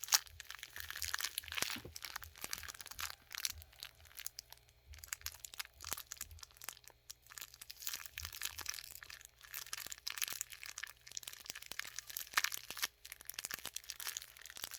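Soggy, once-frozen food being squished by hand: a dense run of small wet crackles and crinkles.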